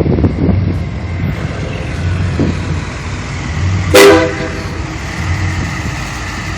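An engine running with a steady low rumble, and one short horn toot about four seconds in.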